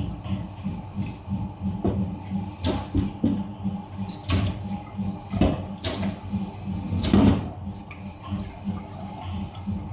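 Water running and splashing at a kitchen sink, with a handful of sharp knocks and clatters, the loudest about seven seconds in.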